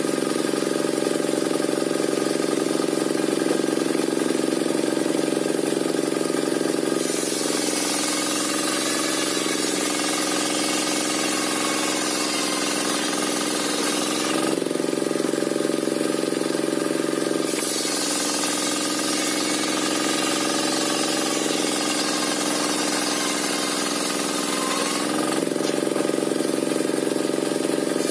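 Engine-driven circular sawmill running steadily. Twice the blade rips through a waru log, each cut lasting several seconds. While it cuts, a loud high hiss of sawing joins the machine's hum and the engine note drops slightly under the load, then lifts again when the cut ends.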